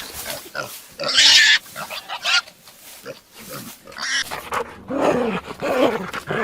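Pig grunting and squealing in a string of short calls, the loudest a harsh squeal about a second in.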